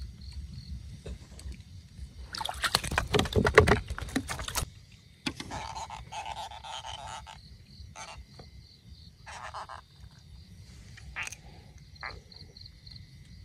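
Frogs croaking in short pulsed calls over a steady, pulsing insect chirp, after a loud, rough burst of noise about two to four seconds in.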